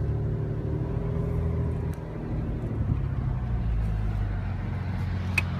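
A car driving: a steady engine drone with road noise, dipping briefly about two seconds in, and a single sharp click near the end.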